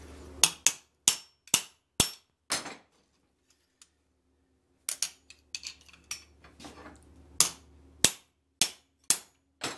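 Hand hammer striking a metal hinge on a steel anvil, cold-bending it to a radius: a run of sharp ringing blows, a short lull with light metal clinks as the hinge is turned over, then more blows about every half second.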